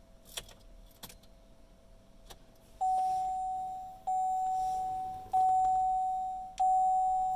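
A 2015 Chevrolet Silverado 2500 HD's warning chime sounding as the ignition is switched on: four single-tone chimes, each starting sharply and fading, evenly about a second and a quarter apart, beginning about three seconds in, after a couple of faint clicks in the first second. The chimes working show the truck's chime function is kept with the newly installed aftermarket stereo.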